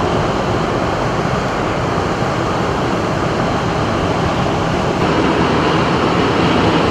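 Steady rushing road and wind noise inside a moving car.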